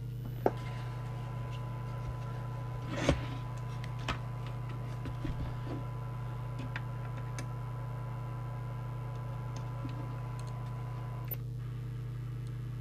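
A few sharp clicks and knocks from handling the open CB radio and bench gear, the loudest about three seconds in. Behind them run a steady low hum and a faint steady test tone, which cuts off near the end.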